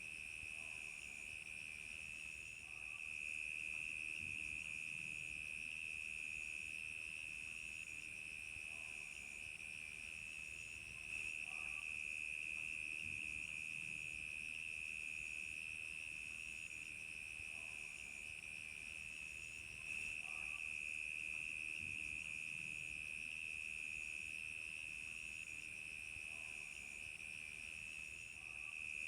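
Crickets chirping in a continuous high trill, with a fainter chirp above it pulsing about once a second.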